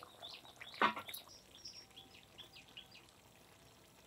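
A ladle scrapes once against a clay cooking pot of chicken curry, a little under a second in, followed by faint, scattered bird chirps in the background.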